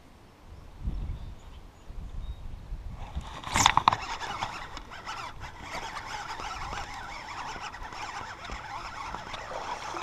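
Close handling noise from hands working a baitcasting reel and rod: a sharp sound about three seconds in, then a steady run of small clicks and rustles.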